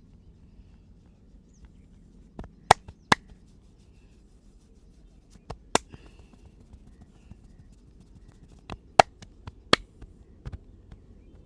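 Sharp slaps of the masseur's hands striking during a percussive head and back massage, about ten in short clusters of two to four.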